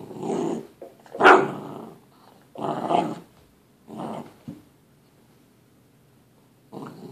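Great Dane puppy play-growling in about five short, rough bursts while tugging at a toy, the loudest and sharpest about a second in, almost a bark.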